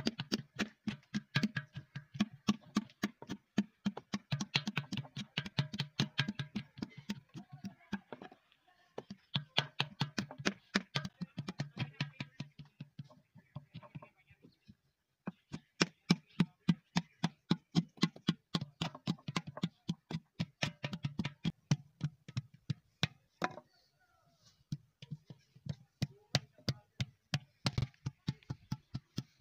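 A wooden paddle beating the wall of a clay pitcher against a hand or anvil held inside it: a fast, even run of dull knocks, about five a second, stopping briefly three times.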